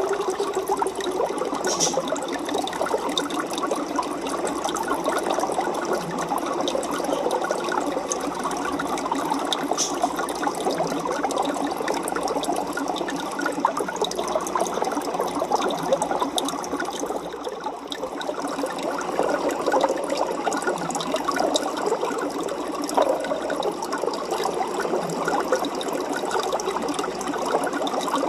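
Aquarium water bubbling and trickling steadily, a dense crackle of small splashes that dips briefly about two-thirds of the way through.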